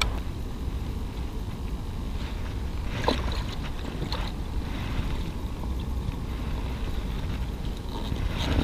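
Wind buffeting the action camera's microphone, a steady low rumble, with a couple of faint clicks about three and four seconds in.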